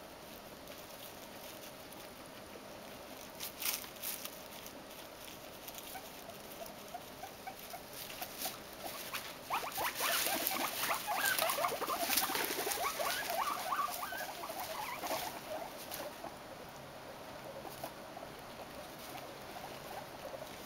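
Guinea pigs rummaging in hay and wood shavings and chewing, a dry crackly rustling. It grows busiest in the middle and eases off toward the end.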